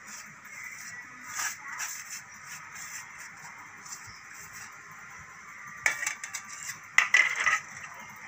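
Fingers scraping and pushing dry spice powders across a stainless-steel plate, with scattered rasping scrapes and a few sharper clinks of steel dishes, the loudest about seven seconds in.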